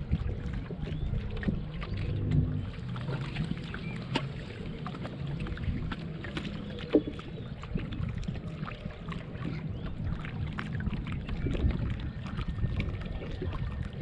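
Wooden rowing boat moving through lake water: oar strokes with scattered small knocks and splashes, over a low rumble of wind on the microphone.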